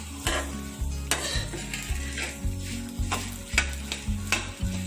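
Flat metal spatula stirring and tossing puffed rice mixed with vegetables in a kadai, scraping against the pan in repeated strokes about one or two a second, with the dry rustle of the puffed rice.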